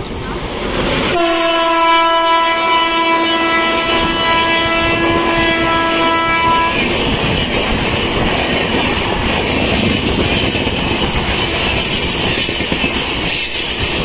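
An Indian Railways electric locomotive's horn sounds one long, steady blast, starting about a second in and lasting some five seconds. After it cuts off, a fast passenger train's coaches rush past with a loud roar of wheels and a clatter over the rail joints.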